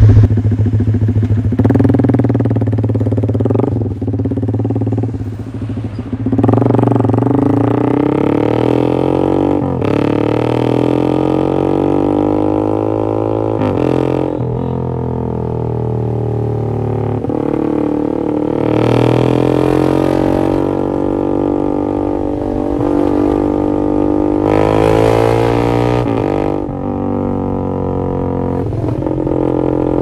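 Yamaha MX King's 150 cc single-cylinder four-stroke engine breathing through an X1 Speed Racing SH-01 full aftermarket exhaust, accelerating through the gears. The exhaust note climbs in pitch and then drops sharply at each of several upshifts, then holds and rises and falls with the throttle while cruising.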